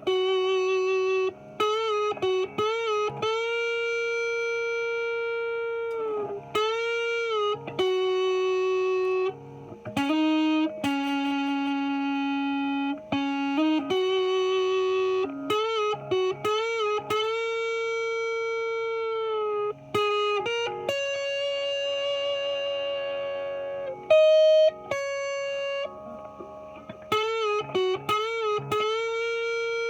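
Epiphone 1959 Les Paul Standard reissue on its neck pickup, played through the distortion channel of an Orange amp, playing a single-note lead line. Long sustained notes with vibrato and a few string bends are broken up by short runs of quick picked notes.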